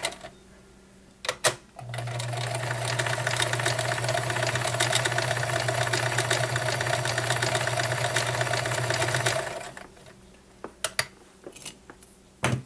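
Kenmore model 1941 convertible free-arm sewing machine running steadily, sewing a stretch stitch, for about seven and a half seconds before stopping. A couple of sharp clicks come before it starts, and a few more after it stops.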